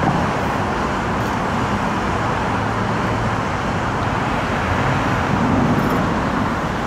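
Steady road traffic noise, a continuous hum of passing vehicles, swelling slightly about five seconds in.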